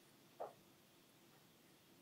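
Near silence: faint room tone, with one short, faint tap about half a second in.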